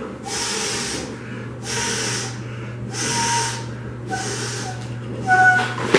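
Air being forced into inflatable barricades in about four or five hissing strokes, each roughly a second long with short pauses between, over a steady low hum.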